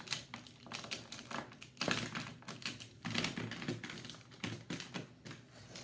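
Plastic markers clicking and clattering against each other as they are handled and sorted through, a quick irregular run of light clicks with louder clusters about two and three seconds in.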